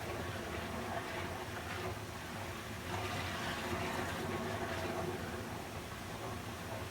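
Running water flowing steadily, an even rushing noise with no breaks, with a faint low hum underneath.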